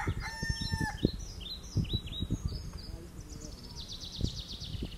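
A rooster crowing, its held call dropping off about a second in. It is followed by small birds chirping in short falling notes and a fast high trill near the end. Scattered low thuds sound underneath.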